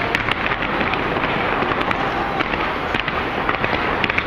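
Fireworks display going off without pause: a dense crackle with many sharp pops and cracks, several a second.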